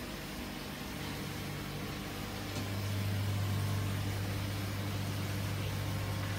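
Steady hum of an exhaust fan running, with a low drone that grows louder about two and a half seconds in and then holds.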